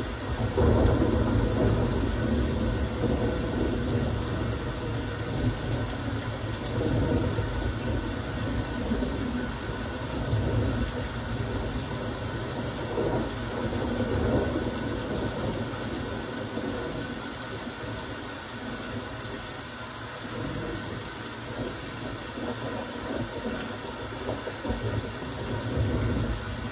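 Steady rain falling, a continuous hiss of drops, with a deeper rumble underneath that swells and fades several times.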